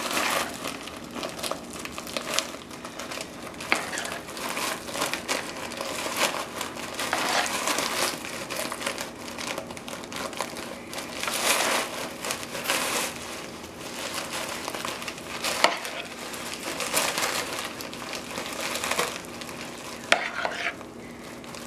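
Plastic zip-top bag crinkling in irregular bursts as it is handled, with a spoon scraping and scooping a thick creamy mixture in a plastic bowl and a few sharp clicks.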